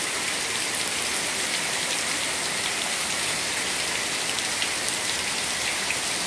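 Heavy downpour falling steadily, a dense even hiss with scattered small drip ticks, as rainwater leaks in and splashes onto a flooded concrete floor.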